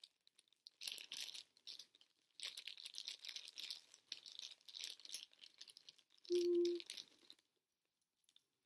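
Packaging crinkling and rustling, with small rattles, as a bracelet is unwrapped by hand, in several stretches that stop about seven seconds in. A brief, loud, steady tone sounds for about half a second just after six seconds in.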